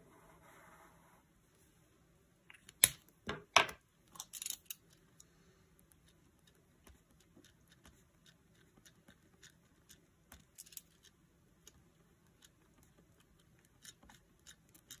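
Small handling sounds of planner-crafting supplies: two sharp clicks about three seconds in, a short rustle just after, then faint scattered taps and ticks.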